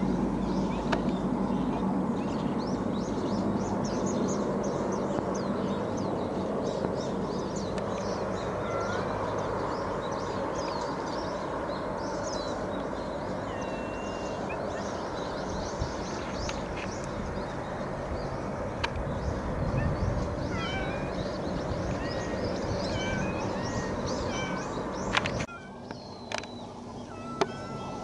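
Steady low drone of a distant hovercraft crossing the bay, with small birds chirping over it from partway through. Near the end the background drops off suddenly and a cat meows briefly.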